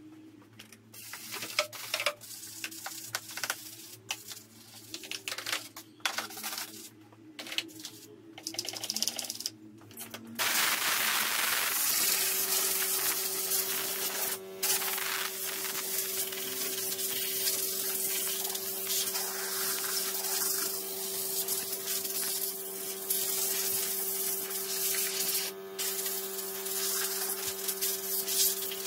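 Compressed-air blow gun hissing steadily as it blows water off a freshly washed car engine bay, broken off for a moment twice. A steady hum runs underneath. Before the air starts, about a third of the way in, there are only scattered short clicks and knocks.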